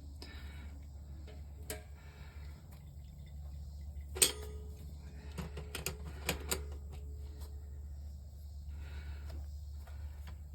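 A few sharp metallic clicks and clinks from handling tools and fittings on a well-pump pressure switch. The loudest comes about four seconds in and rings briefly, and a quick cluster of clinks follows around six seconds in, over a steady low hum.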